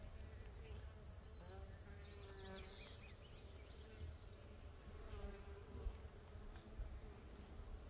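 Faint, wavering buzz of mason bees flying close by. A bird gives a short burst of high chirps about two seconds in.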